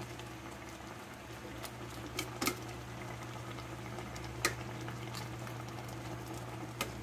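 Coconut-milk vegetable and shrimp stew simmering in a stainless steel pot as a metal ladle stirs it, with a few sharp clicks of the ladle knocking against the pot, over a steady low hum.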